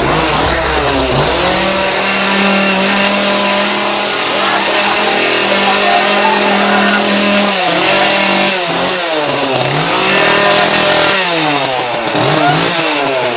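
Small two-stroke chainsaw engine revved loud, first held at a steady high rev for several seconds, then revved up and down again and again, its pitch swooping in quick rises and falls.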